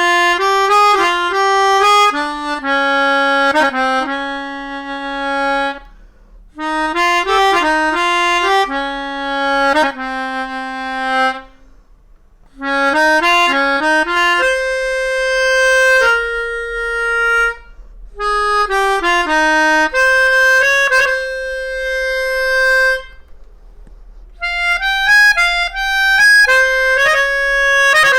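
Hohner Superforce 37 melodica, a mouth-blown free-reed keyboard instrument, playing a single-line melody in five phrases, each a run of quick notes ending on a long held note, with short breaks between phrases.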